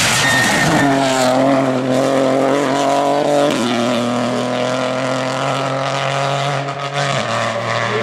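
Peugeot 208 rally car engines running hard at high revs, the note held steady and then dropping in pitch about three and a half seconds in and again near the end.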